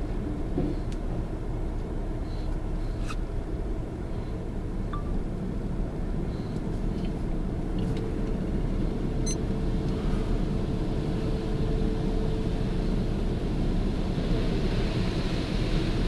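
Automatic tunnel car wash heard from inside the car: a steady low rumble of the wash machinery and the car, with a faint steady hum in the middle. Near the end a hiss builds as water and foam spray onto the windshield.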